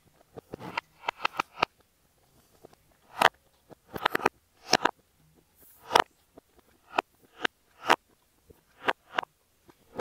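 Silicone pop-it fidget toy's bubbles being pressed by fingers: an irregular run of short soft pops, some in quick clusters, played in reverse.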